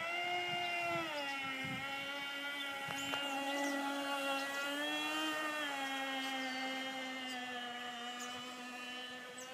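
Traxxas RC nitro boat's .15 two-stroke glow engine running at speed on the water, a high buzzing note. Its pitch drops about a second in, rises briefly around four to five seconds, then drops and settles as the boat circles.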